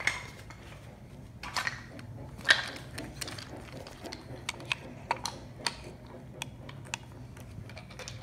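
Wooden toy train and wooden track pieces clicking and knocking, an irregular run of sharp clicks as they are handled and rolled, the loudest about two and a half seconds in, over a faint low hum.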